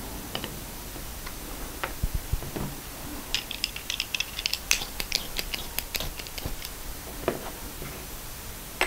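Small metal lens and shutter parts of an Agfa Isolette folding camera clicking and ticking as they are handled and worked at by hand, a few separate clicks, then a quick run of light clicks for a few seconds in the middle.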